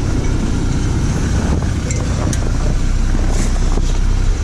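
Vehicle engine idling, with wind rumbling on the microphone and a few faint metallic clicks in the second half.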